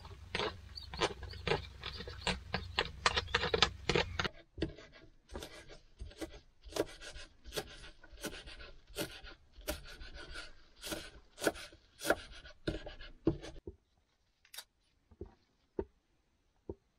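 A kitchen knife chopping on a plastic cutting board: first rustling and small clicks as bacon is tipped from its packet into a bowl, then a long run of quick, even strokes chopping thin leek. Near the end the strokes turn to a few separate cuts through a red onion.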